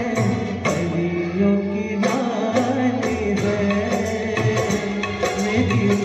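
A man singing into a microphone, amplified through a PA, over a backing track with a steady percussion beat; his voice holds and slides between long notes.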